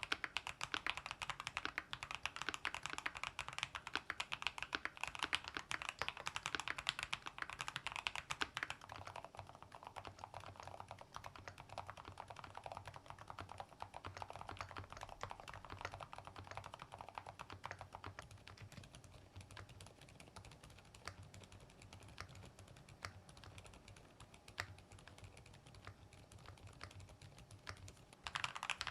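Typing on a Keychron K10 Pro Max mechanical keyboard in three runs, each quieter than the last. First banana switches with a thick, full keystroke sound; then, about nine seconds in, softer silent red switches; then, about eighteen seconds in, the quietest, silent banana switches.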